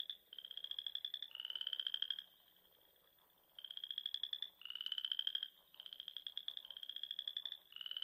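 Frog calling: a run of high-pitched, rapidly pulsed trills, each just under a second long and rising slightly in pitch, with a pause of about a second a little past two seconds in.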